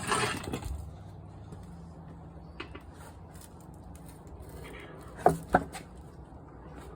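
Two sharp knocks a quarter-second apart about five seconds in, over a low steady background, after a short rustling burst at the very start.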